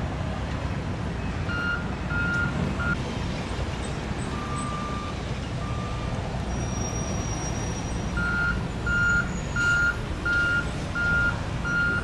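Diesel engine of a CASE 1121G wheel loader running under a steady rumble while a backup alarm beeps at about one and a half beeps a second: a short run about two seconds in, and a longer run over the last four seconds as the loader reverses. A few lower, longer tones sound in between.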